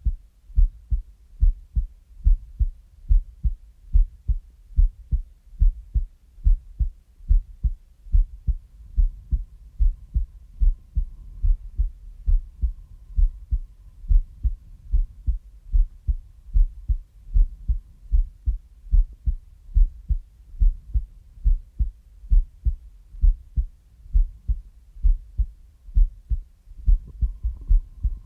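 A heartbeat: low, dull thumps repeating at a steady, even pace.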